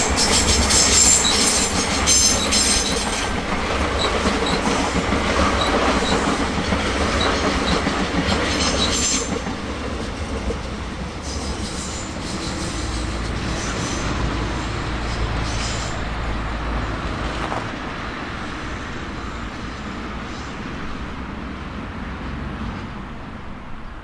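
A train rolling past, its wheels clacking rhythmically over rail joints with a faint squeal, then the rumble slowly fading as it moves away.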